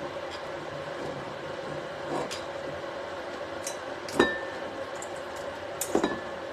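A glass wine bottle being handled and worked open, with small scrapes and clicks against the glass. There is a sharp clink with a brief ring about four seconds in, another near the end, and a steady low hum underneath.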